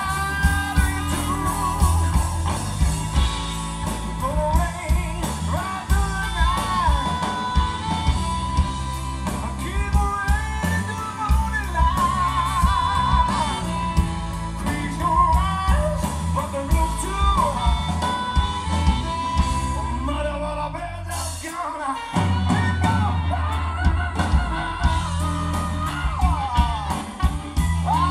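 Blues band playing live: electric guitars, bass guitar and drums, with a harmonica carrying wavering lead lines over the top. About six seconds before the end the bass and drums drop out for a moment, then the full band comes back in.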